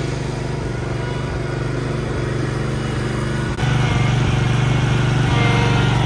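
Engines of a ready-mix concrete truck and a Whiteman power buggy running steadily while wet concrete slides down the truck's chute into the buggy's hopper. About three and a half seconds in, the engine noise steps up louder and stays there.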